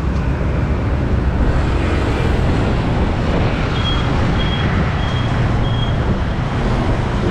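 Steady road traffic of motor scooters and cars passing in a continuous low rumble. A little past the middle come four short, high, evenly spaced beeps.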